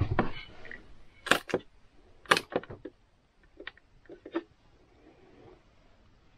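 A few sharp clicks and knocks: two loud ones about a second apart, then several fainter taps that die away.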